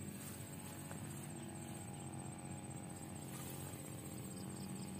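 Faint, steady high-pitched insect trill over a low hum, with no clear sound from the cast itself.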